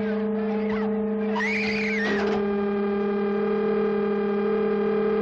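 Steady electronic sci-fi drone with many overtones. A brief warbling sweep comes about two seconds in, and then the drone settles a little lower in pitch.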